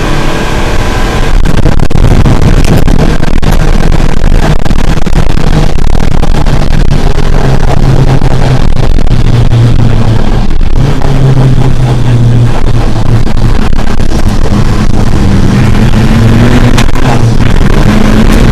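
Rally car's TDI turbodiesel engine driven hard, heard from inside the stripped, caged cabin. It runs very loud, its pitch climbing and dropping with gear changes, over heavy road and tyre noise.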